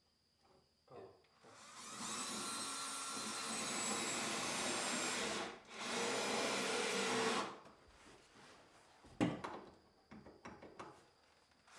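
Cordless drill running in two bursts, about four seconds and then about a second and a half, while a timber wall stud is being fixed; a sharp knock follows a little later.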